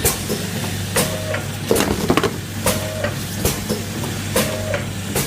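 Automatic four-side-seal liquid sachet packing machine running through its cycle. Sharp clicking, hissing strokes come roughly once a second over a steady motor hum.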